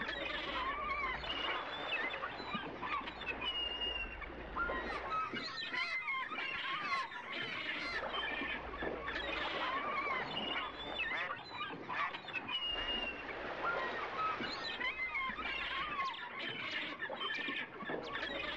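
Waterfowl on a lake calling, many short calls overlapping throughout, with a low rumble coming and going underneath.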